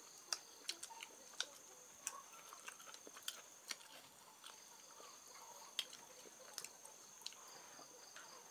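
Faint, irregular clicks of wooden chopsticks against the shells of cooked stream snails as they are picked from the tray and eaten, with small eating noises between them.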